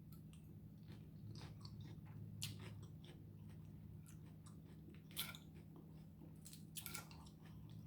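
Faint close-up chewing and biting of food, with scattered small mouth clicks and a few louder crunchy bites about two and a half, five and seven seconds in, over a steady low hum.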